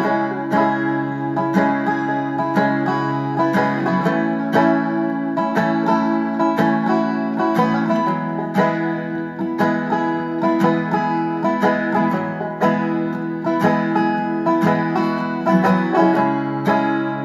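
Background music: a plucked-string instrumental with a steady run of picked notes.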